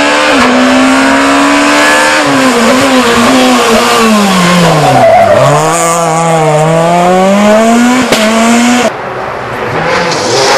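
Rally car engine at high revs, its pitch climbing and falling through gear changes and lifts, with a deep dip about five seconds in before it climbs again. Near the end it cuts off abruptly to another car's engine, quieter.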